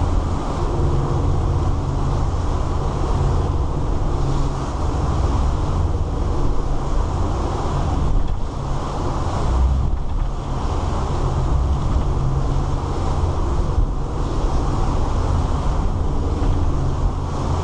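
A 2000 Sea Ray 340 cabin cruiser's engines running steadily under way through rough water, with wind and water rushing over the boat.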